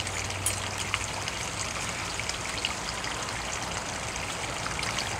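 Steady running water, a continuous trickling-stream sound, with a few faint scuffs and ticks of a gloved hand working soil in a planting hole.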